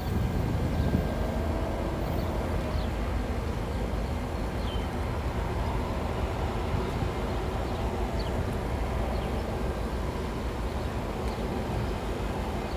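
Rear pair of Union Pacific diesel-electric locomotives, the distributed-power units of a container train, running as they pull away, with a steady low rumble of engines and wheels on rail that slowly fades.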